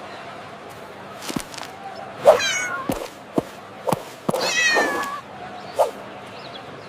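A cat meowing twice, a short call and then a longer one, over a steady hiss, with several sharp knocks in between.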